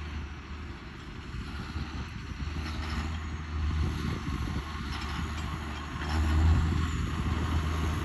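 John Deere loader tractor driving across a hay field, its engine running with a steady low drone that grows louder as it comes closer, loudest a little after six seconds in.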